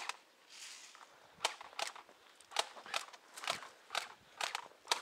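Footsteps crunching through dry undergrowth, about two steps a second and slightly uneven.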